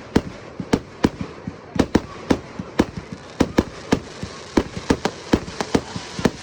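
Fireworks going off: a rapid, irregular string of sharp bangs, about three or four a second, over a steady hiss.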